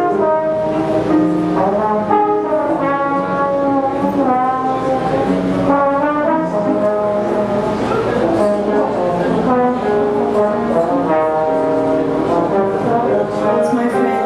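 Brass ensemble, led by trombones, playing a slow passage of held notes in chords.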